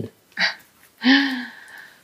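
A woman's short cough, then a longer voiced cough or throat-clearing about a second in. It is a lingering cough after a viral illness.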